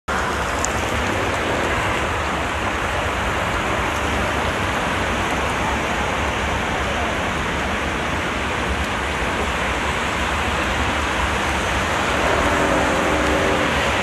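Heavy rain pouring onto a flooded street, a steady hiss of rain hitting standing water.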